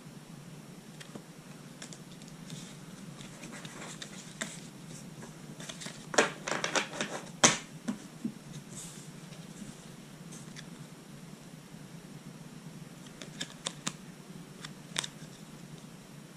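Pokémon trading cards handled on a table: a quick run of card clicks and snaps as they are slid, flicked and set down, about six seconds in, and a few single card clicks near the end, over a steady hiss.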